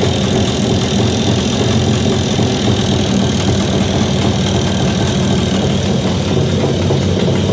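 Jawa 350 type 638 two-stroke twin idling steadily at a very low idle, with a knock in the engine that the owner suspects could be the pistons, the crankshaft labyrinth seal or the centre main bearing.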